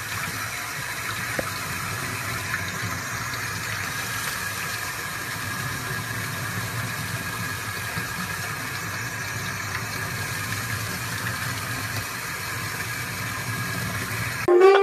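Water running steadily from a sink faucet onto a puppy being bathed in the sink, splashing over the puppy and the hands washing it. Saxophone music cuts in right at the end.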